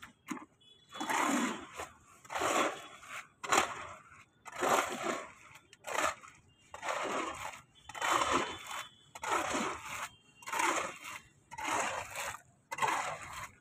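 A shovel scraping and turning wet concrete mix of cement, sand and gravel by hand on the ground. The strokes come in a steady rhythm, about one every second and a bit, with a couple of sharp clicks of the blade against stones in between.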